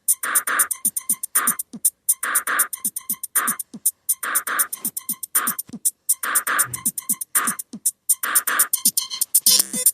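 Music: a looping percussive beat of short, sharp hits and low falling thumps, the pattern repeating about every two seconds.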